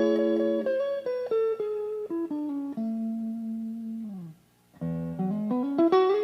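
Washburn MG-300 electric guitar played note by note with a clear, undistorted tone. A held note slides down about four seconds in, there is a brief pause, and then a phrase slides upward.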